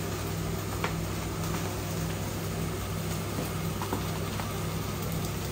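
Mushrooms sizzling steadily as they fry in oil in a pan, with a steady low hum underneath.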